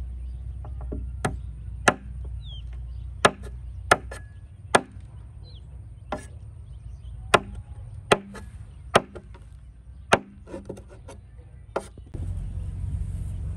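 Chopping with a blade: about a dozen sharp single chops at an uneven pace, some much louder than others.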